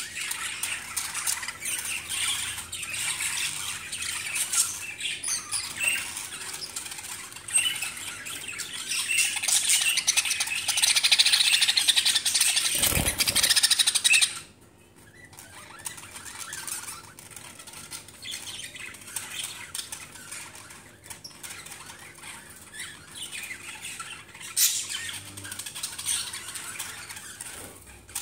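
A flock of caged budgerigars chattering and squawking, with wings fluttering as birds move about. The chatter swells through the first half, drops off suddenly about halfway through, and carries on more quietly.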